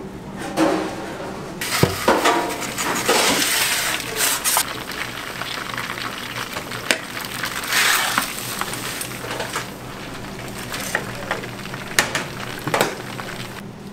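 Kitchen sounds: two spells of hissing, a few sharp clicks and knocks, over a steady low hum.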